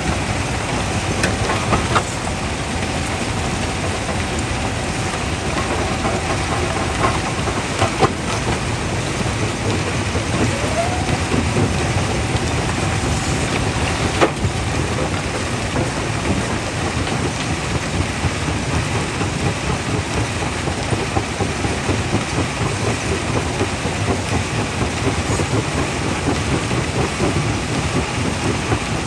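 Quarry jaw crusher running under load: a dense, steady grinding rumble with a few sharp knocks of rock breaking. A steady whine sounds over it for the first several seconds and again briefly in the middle.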